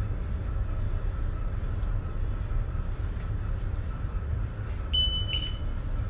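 A steady low rumble of ship machinery. About five seconds in, the water ingress alarm panel's buzzer starts sounding a steady high tone with a brief break. This is the alarm triggered by water poured on a cargo hold's water ingress sensor during testing.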